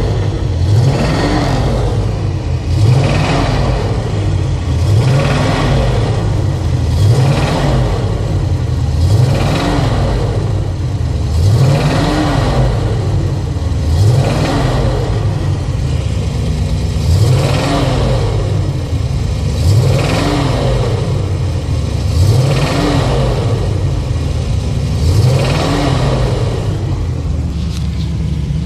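Car engine revved again and again in park: the engine note rises and falls about every two seconds. The owner is trying to bring out a knock that he hears from the engine under load once it is warm.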